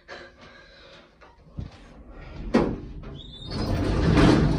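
Lift's automatic sliding doors opening on arrival at the ground floor: a light click, a sharp clunk about two and a half seconds in, then a short rising whine and a swelling rush as the doors slide open near the end.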